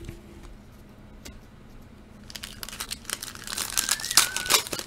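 A plastic trading-card pack wrapper being torn open and crinkling, starting about halfway through and getting louder toward the end. Someone whistles a few notes near the end.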